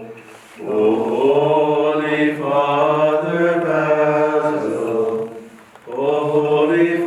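Byzantine-rite liturgical chant sung by voices in slow, sustained phrases: one long phrase, a brief breath pause, then the next phrase starting near the end.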